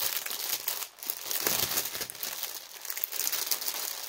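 Packaging crinkling and rustling as a cross-stitch kit is handled and unwrapped, with a brief lull about a second in.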